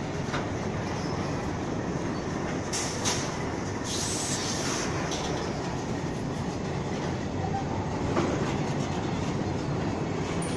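Freight train's tank wagons rolling past on the rails, a steady rumble of wheels and bogies. There are two brief high-pitched hisses about three and four seconds in.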